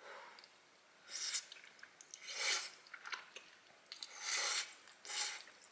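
A person slurping thick udon noodles, four short hissing slurps with chewing between them.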